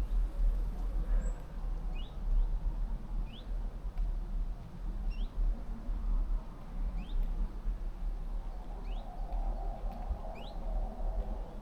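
A small bird calling: short, high, rising notes, one about every second and a half, over a steady low rumble.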